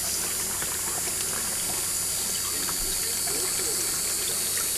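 Water running steadily over the ribbed matting of a Gold Hog washer mat, fed by a small pump, as it washes gold concentrates down; a steady low hum runs under it.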